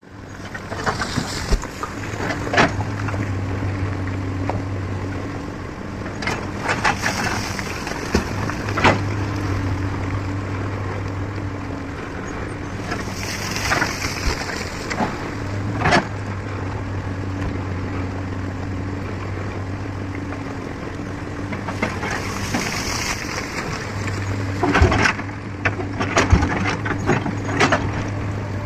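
Excavator engine working, its hum swelling and easing in a repeating cycle every several seconds, with sharp knocks and rattles of the machine and rock.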